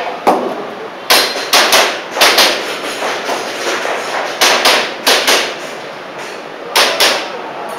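Airsoft pistol firing a string of sharp shots, about a dozen, some in quick pairs, with a short pause near the end before the last few.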